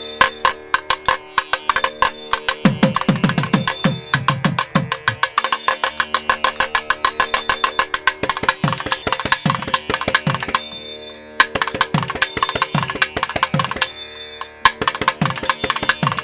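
Background music: fast hand-drum strokes over a sustained drone, dropping out briefly twice in the second half.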